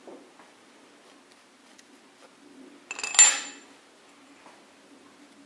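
One sharp metallic clink with a short ring about three seconds in, amid faint handling noises: an ARP head bolt and its washer being set into the aluminium cylinder head.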